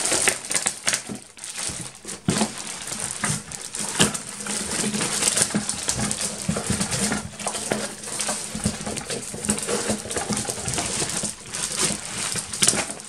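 Clear plastic bag wrapping crinkling and rustling as a bagged model-airplane fuselage is handled and shifted inside a cardboard box, with many small clicks and knocks throughout.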